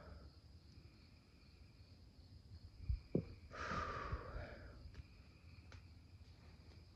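Faint woodland night ambience: a steady high insect trill, two low thumps about three seconds in, then a breath-like rustle lasting about a second.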